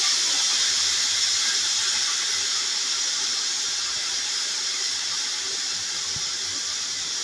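Pressure cooker whistling: a loud, steady hiss of steam escaping past the weighted vent on the aluminium lid, easing slightly. The whistle is the sign that the cooker has come up to pressure, and the whistles are counted to time the cooking.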